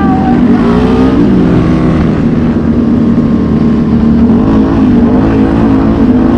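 ATV engine running hard on a gravel road, heard from the rider's own quad, with its CVT-driven note dipping once and picking back up, then running steady.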